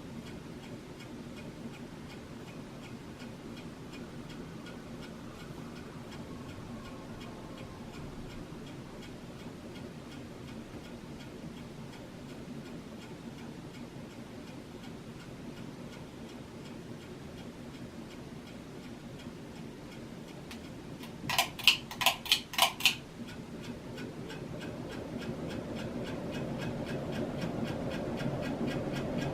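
Hunter Low Profile ceiling fan running with two blades, its bearing making a steady, even clicking over the motor hum. About three-quarters of the way in come five sharp, loud clicks in quick succession, after which the hum grows steadily louder as the fan speeds up.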